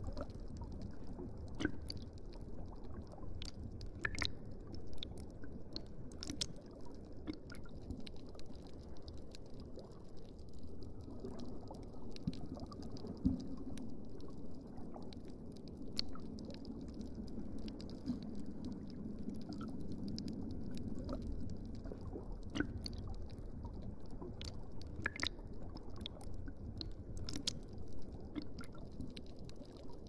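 Underwater reef ambience: a low steady rumble with scattered sharp clicks and crackles, and a swell of low sound in the middle.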